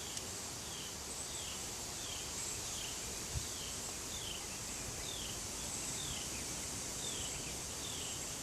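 Outdoor insect chorus: a steady high hiss with a short falling chirp that repeats about every half second to two-thirds of a second. There is a single soft low knock about a third of the way in.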